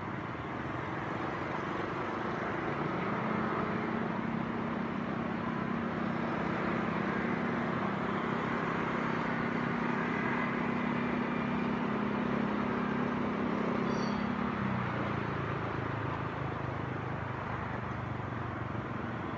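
Motorcycle engine running steadily with road and wind noise; about fifteen seconds in, its pitch drops lower and stays there.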